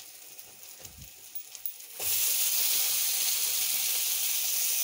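Cut ridge gourd going into hot oil in a kadai. A loud, steady sizzle starts suddenly about two seconds in, after a quieter start.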